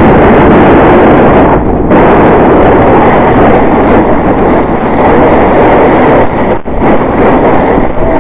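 Loud, steady rushing noise of a johnboat towed at speed over a snowy road behind a Polaris 1000 side-by-side: wind on the helmet camera and the hull sliding over snow, briefly dipping twice.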